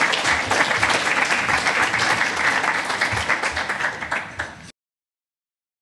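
Audience applauding, a dense patter of many hands clapping that cuts off abruptly about three-quarters of the way through.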